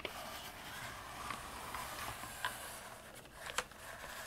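Hot Wheels Lift & Launch hauler, a plastic toy truck, rolled by hand across carpet: a faint rolling hiss with a few light clicks. There is no squeak from the plastic wheels.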